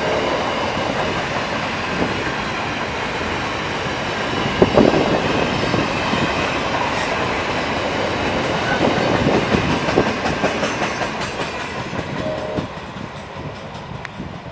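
Grain hopper wagons of a freight train rolling past, their wheels clacking over the rail joints above a steady rumble. There are a few sharper knocks about five and ten seconds in, and the sound drops away near the end.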